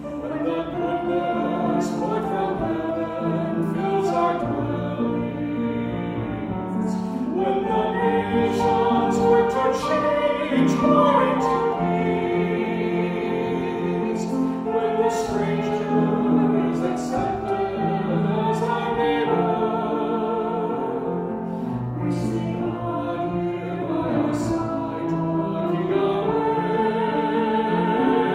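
Three voices, a man and two women, singing a hymn verse together at a steady level, reaching the refrain near the end.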